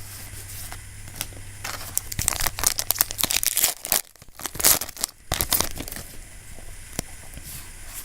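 Foil Yu-Gi-Oh! booster pack being torn open and its wrapper crinkled, in two spells of crackling, about two seconds in and again about four and a half seconds in.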